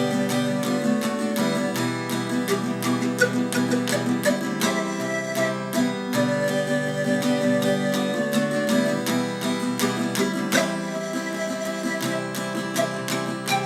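Instrumental music: acoustic guitar strumming steadily under a held, sustained melody line.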